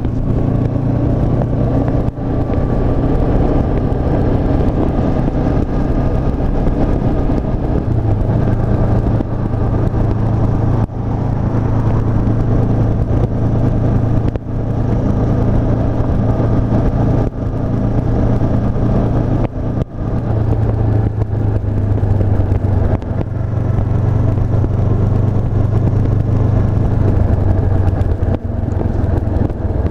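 2017 Honda CB500F's 471 cc parallel-twin engine running under way on the road, its note fairly steady with brief dips every few seconds.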